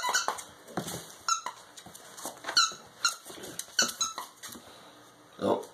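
Squeaky plush dog toy squeaked over and over as a puppy bites and tugs at it: a string of short, high squeaks that fall in pitch, several seconds apart or in quick pairs.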